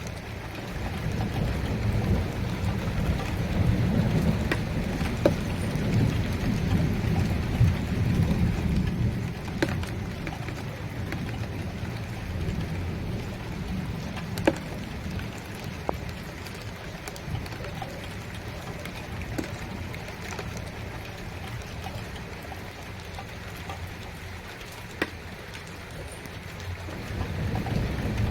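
Steady rain with scattered drops ticking sharply on a surface, and a low rolling rumble of thunder that swells a second or two in and dies away by about ten seconds.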